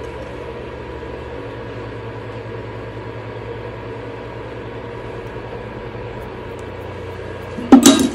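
Induction cooktop humming steadily while it heats a pot, with a brief loud clatter near the end.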